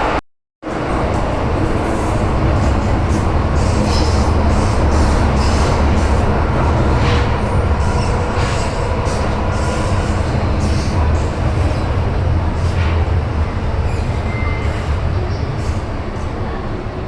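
MTR metro train running, heard from inside the carriage: a steady low rumble with scattered wheel clicks over the track. The rumble eases slightly toward the end.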